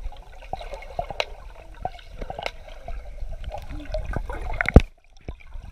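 Swimming-pool water heard through a camera held underwater: a muffled gurgling, bubbling wash with scattered clicks, and one sharp, loud knock a little before the end.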